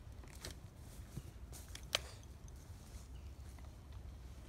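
Footsteps crunching in dry leaves and twigs, with scattered soft crackles and one sharp click about two seconds in.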